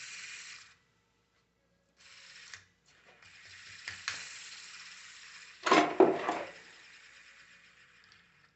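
Worn ball bearing of a 24-volt truck alternator spun by hand, giving a dry, gritty rattling rasp that dies away as it coasts, in two spins, with a louder clatter about six seconds in. The roughness is the sign of the failed bearing that is being replaced.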